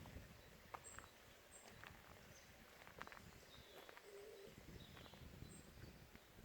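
Faint outdoor ambience with scattered short, high bird chirps and a few soft clicks.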